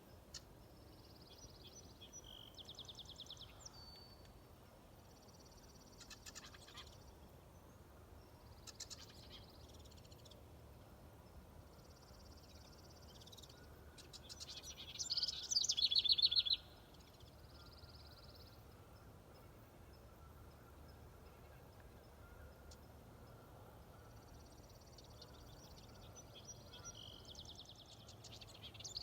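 A warbler singing: short, high phrases of rapid notes every few seconds, each ending in a lower trill, the loudest about halfway through.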